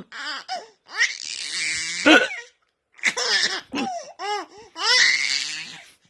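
A baby laughing in about four bursts. There are breathy stretches, and in the middle a run of short notes that rise and fall.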